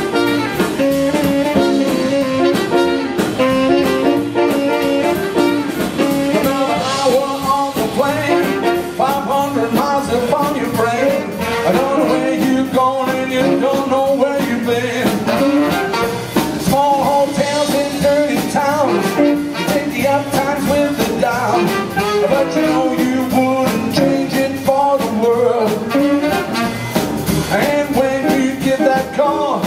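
Live jazz band playing a swing number: trumpet and tenor saxophone over upright bass and a steady drum beat, with a male singer's voice.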